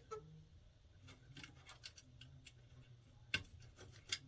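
Light rubbing and small clicks of thin low-voltage thermostat wires being worked into a control board's terminal by hand, with two sharper clicks near the end.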